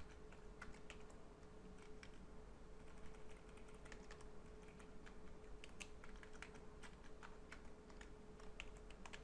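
Faint computer keyboard typing: irregular keystrokes scattered throughout as HTML code is typed.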